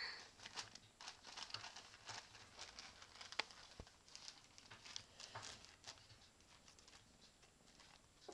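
Thin clear plastic bag crinkling and rustling faintly in many small irregular crackles as a cat noses and paws at it and a kitten shifts inside. One sharper click comes about three and a half seconds in.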